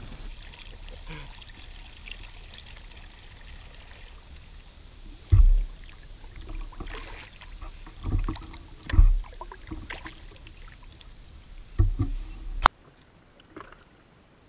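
Kayak paddling on calm water: paddle blades dipping and splashing, with four loud low thumps of paddle and boat spread through the middle. Near the end the sound drops suddenly to faint water.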